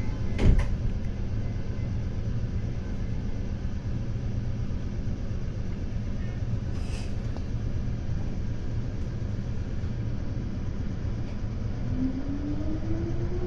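Meitetsu 200 series electric train running, a steady low rumble heard from inside the car, with a single knock about half a second in. Near the end a motor whine rises in pitch as the train picks up speed.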